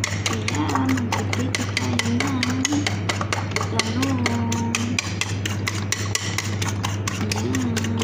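Fork beating eggs in a bowl: a fast, steady clatter of about five strokes a second.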